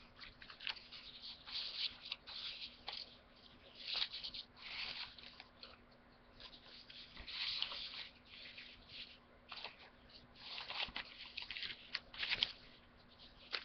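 Sheets of origami paper rustling and sliding against each other as they are handled and leafed through, coming in short bouts with a lull about six seconds in.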